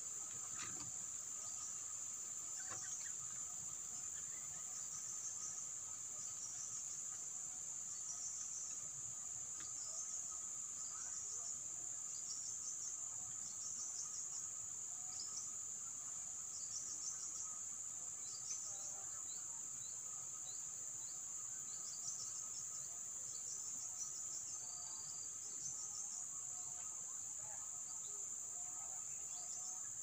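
Insects droning steadily at a high pitch, with a second steady lower insect tone beneath and short faint bird chirps scattered throughout.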